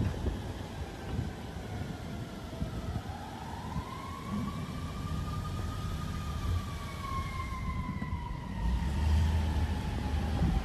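An emergency vehicle siren wailing: one slow rise and fall in pitch, dropping away near the end, over a steady low rumble of road traffic.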